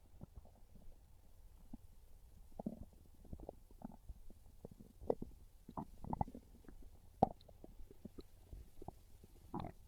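A hungry, empty human stomach gurgling and rumbling in short, irregular gurgles and pops, with a sharp pop about seven seconds in and stronger gurgles shortly before it and again near the end.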